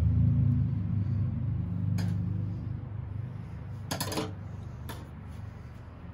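A low engine rumble, loudest at first and fading away, with a few sharp clicks of small metal parts about two and four seconds in as the rectifier's wire terminals are handled.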